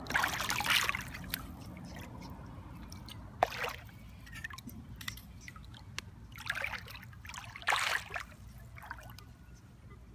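Sand scoop digging into wet sand and water in a hole at the river's edge, sloshing and splashing four times, with water trickling in between.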